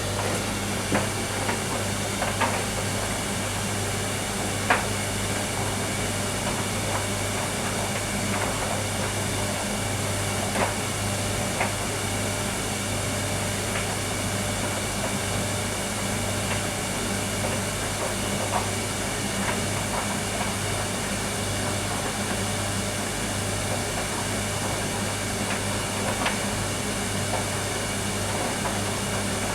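Bosch WTN85280 tumble dryer running with a load of towels: a steady low hum from the motor and turning drum, with a few short light knocks scattered through.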